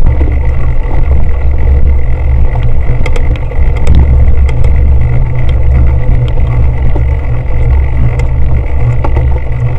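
Heavy low rumble of wind and vibration on a bike-mounted action camera's microphone while a cyclocross bike rides over bumpy grass, with scattered clicks and rattles from the bike, most of them around three to four seconds in.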